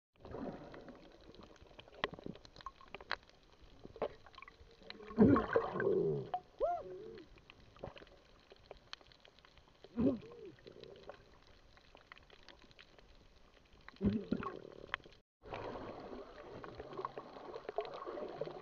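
Muffled underwater sound from a submerged camera: scattered sharp clicks and crackles, with a few gurgling bursts of bubbles about five, ten and fourteen seconds in.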